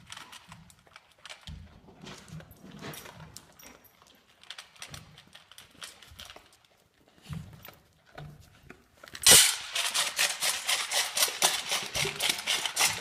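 Dogs' claws clicking and scuffling on a concrete floor: faint scattered clicks and soft thumps, then about nine seconds in a sudden loud, rapid clatter of clicks close to the microphone.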